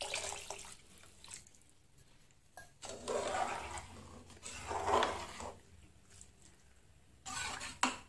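Water poured into a pressure-cooker pot of sambar, then a ladle stirring and splashing through the liquid. The stirring comes in bursts about three and five seconds in and again near the end.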